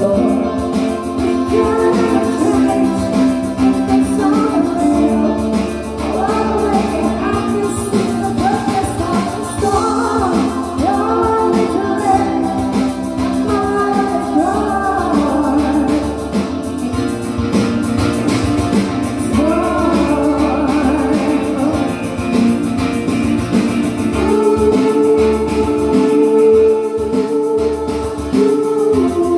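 A voice singing a pop song with guitar accompaniment, steady and continuous throughout.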